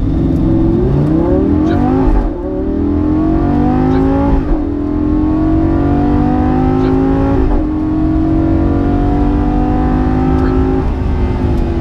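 Lamborghini Gallardo V10 accelerating hard from a standing start, heard from inside the cabin. The engine revs up through the gears with three paddle upshifts, its pitch dropping sharply at each shift. Near the end the driver lifts off and the note falls away.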